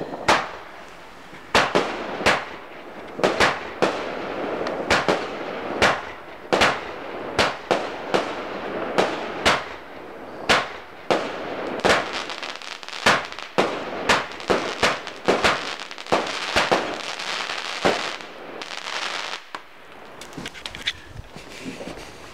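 Cashplay firework going off: a rapid run of sharp bangs, roughly two a second, with crackling between them. The bangs stop near the end and the crackle fades away.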